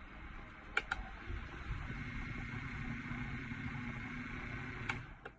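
Small battery-powered USB desk fan running with a steady whir. Two clicks of its push button a little under a second in are followed by a louder, faster run, then a click near the end and the whir drops away.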